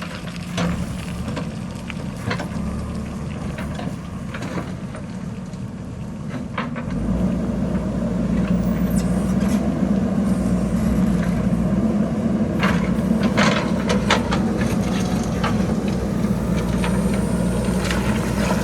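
Diesel engine of a JCB backhoe loader running, working harder and louder from about a third of the way in, while boulders and pebbles clatter down the hillside in scattered knocks, most densely a little past the middle.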